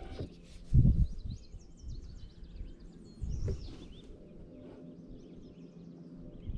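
Small birds chirping and singing, with a dull low thump about a second in and another a little past the middle.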